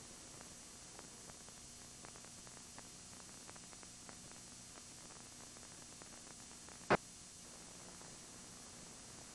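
Faint steady hum and hiss with scattered light ticks, and one sharp click about seven seconds in.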